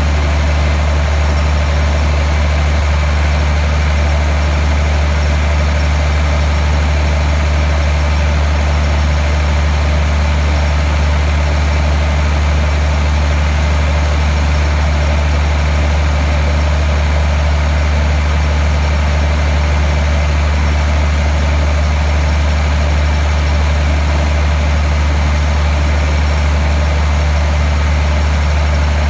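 Diesel engine of a standing passenger train idling, a constant low drone that never changes.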